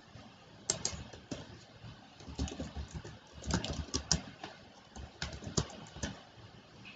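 Typing on a computer keyboard: irregular clicking keystrokes in three short runs, the last about a second before the end.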